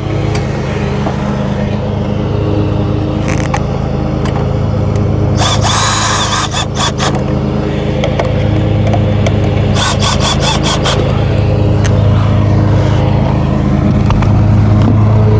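A lawn mower engine runs steadily throughout, with two short bursts of a cordless drill driving screws, about five and ten seconds in.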